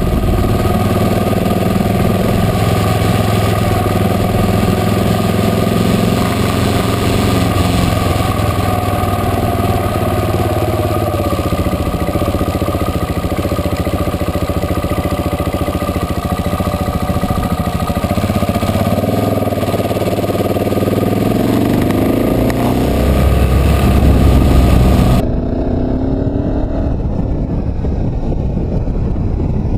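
Motorcycle engine running under way, its pitch climbing in a few rising sweeps as it accelerates towards the last third. About 25 seconds in, the sound changes suddenly and turns duller, with wind rushing over the microphone.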